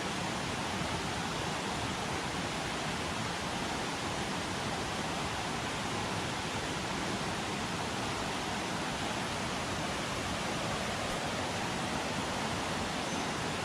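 Rushing river water, a steady even hiss with no break or change.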